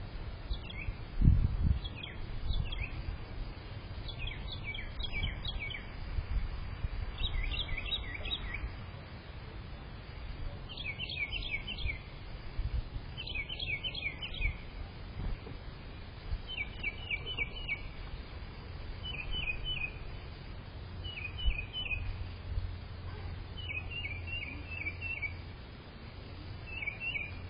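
A bird calling in repeated short bursts of several quick chirps each, every two to three seconds, over a low rumble that is loudest about a second in.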